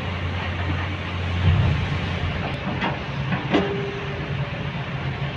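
Diesel engine of a tipper truck running as the truck pulls away, a steady low drone that shifts in pitch about a second and a half in. A sharp knock sounds about three and a half seconds in, followed by a short steady tone.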